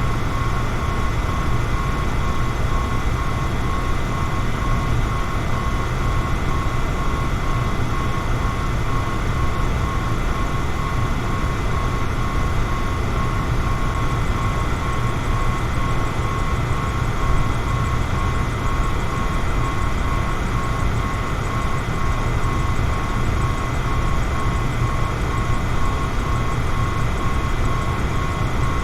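Electric fan running steadily: a deep, even rush of moving air with a thin steady motor whine on top.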